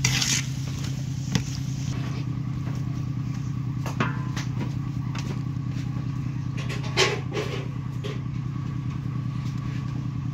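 A small engine running steadily at an even speed, with a few brief knocks over it, the loudest about seven seconds in.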